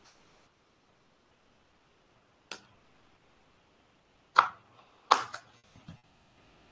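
A handful of short, sharp clicks in a quiet room: a faint one about two and a half seconds in, then three or four louder ones close together near the end.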